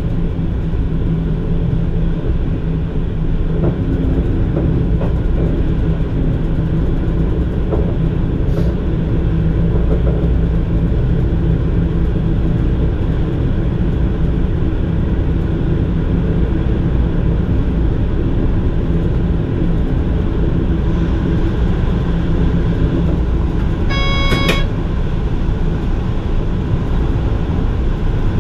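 Cab interior of an NS Mat '64 electric multiple unit under way: a steady rumble of wheels on rail and running gear with a low hum. Near the end, a short high beep cuts through once.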